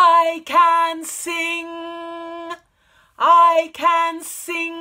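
A woman singing a vocal warm-up exercise unaccompanied: a short phrase of three notes on the same pitch, the first scooping up into the note and the last one held, sung twice.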